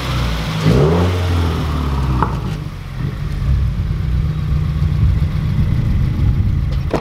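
2016 Subaru WRX's turbocharged flat-four engine running as the car backs out, with a short rev about a second in, then a steady low drone at crawling speed.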